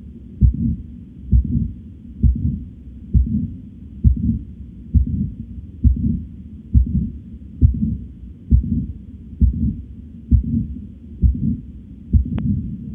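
Recorded human heart sounds: a steady, regular heartbeat of paired lub-dub sounds at about one beat a second.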